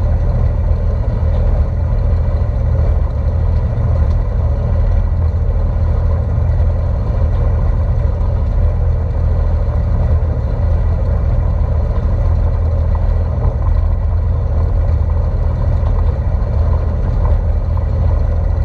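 Deutz D4506 tractor's air-cooled four-cylinder diesel engine running steadily, with a deep, even rumble.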